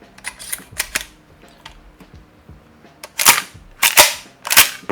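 APS CAM870 shotgun's pump action being cycled with MK3 shells loaded: a few light clicks, then three loud sharp sounds in under two seconds.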